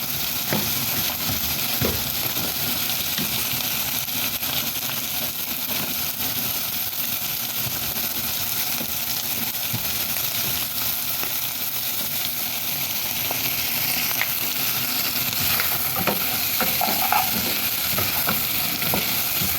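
Chopped onions sizzling as they fry in a little oil in a pan, a steady hiss, with a few short knocks in the last few seconds.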